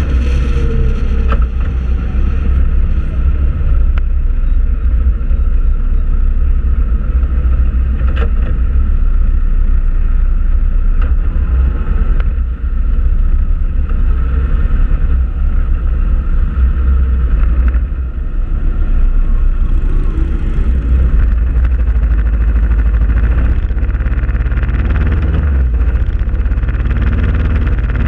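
Motorcycle riding at highway speed: a steady engine drone under loud wind buffeting on the microphone, with a couple of brief dips in level.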